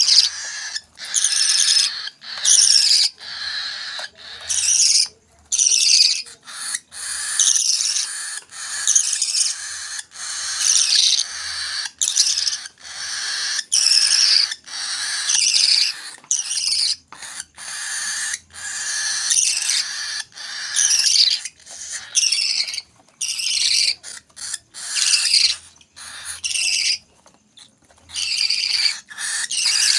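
Hand-fed parrot chicks begging for food: repeated high, harsh cries, one or two a second, with short breaks between them.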